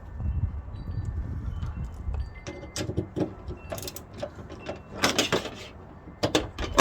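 Clicks and clatter of metal and plastic as a replacement hood latch is positioned and its 10 mm bolts are started by hand. The clatter comes in scattered knocks, with a louder run of rattling about five seconds in, over a low rumble.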